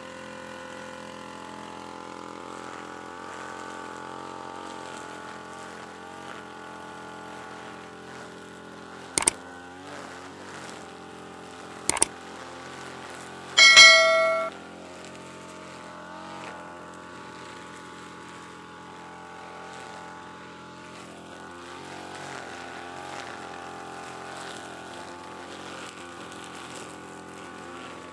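UMA UM328 backpack brush cutter's engine running steadily with slight rises and falls in speed as its nylon line cuts grass. About nine and twelve seconds in come two sharp clicks, then just after, a loud ringing bell chime, the sound effect of a subscribe-button overlay.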